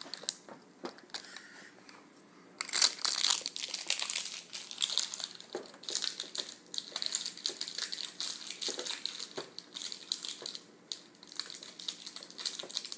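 Crinkling and crunching of crinkly material being crumpled and handled by a baby's hands, starting about two and a half seconds in and going on in uneven spells with many small crackles.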